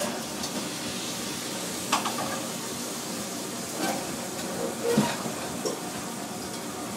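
Commercial kitchen at work: a steady hiss with several sharp clatters of kitchenware, the loudest about five seconds in.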